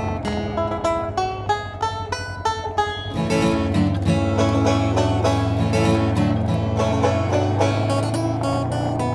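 Background music: plucked acoustic guitar and banjo in a bluegrass or country style, with the band filling out with a steady bass about three seconds in.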